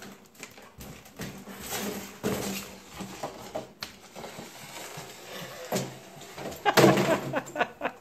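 Clear plastic tube being pushed and batted along a hardwood floor by a dog, scraping and clattering, with claws clicking on the boards; the knocks come loudest in a cluster about seven seconds in.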